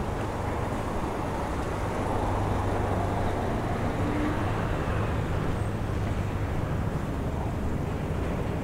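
Steady city street noise, with road traffic running in the background.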